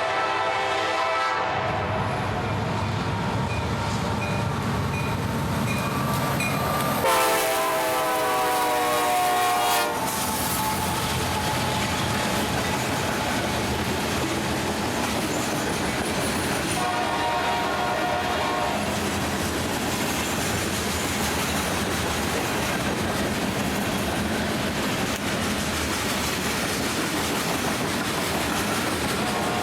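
CSX freight train led by EMD SD70MAC diesel locomotives working hard past the camera, a steady rumble of engines and clattering wheels. The locomotive horn sounds several times: one blast ends about a second in, the loudest lasts about three seconds some seven seconds in, a shorter one comes near the middle, and another starts at the very end.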